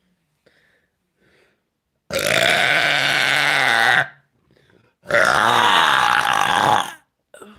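A woman belching two long, loud, deliberate burps, each about two seconds with a wavering pitch, a second apart.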